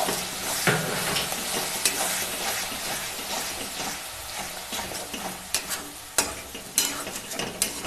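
Tomato purée sizzling in hot oil in a steel kadhai as a metal spatula stirs it, with scattered sharp clinks and scrapes of the spatula against the pan. The sizzle gradually gets quieter.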